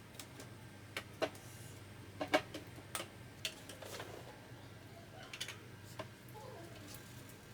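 Irregular hard clicks and knocks from handling the plastic parts of a laser printer, a few in quick succession, over a faint low steady hum.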